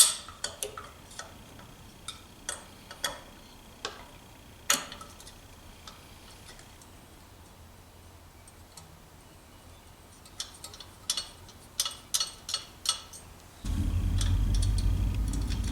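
Scattered light metallic clicks and taps of small metal parts being handled and fitted while a carburettor is mounted on a moped. Near the end a steady low rumble starts abruptly.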